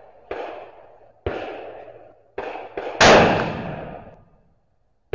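Gunshots: a string of about six sharp reports, each trailing off in echo, some under half a second apart, the loudest about three seconds in.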